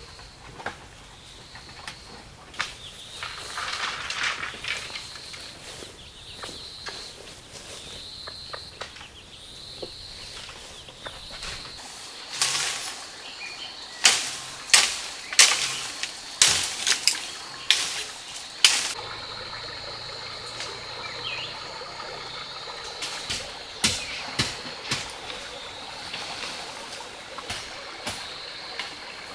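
Outdoor ambience: a bird calling over and over, a short call about every second and a half. About halfway through comes a run of sharp snaps and crackles, the loudest sounds. After that, a steady rush as of a shallow stream running over stones.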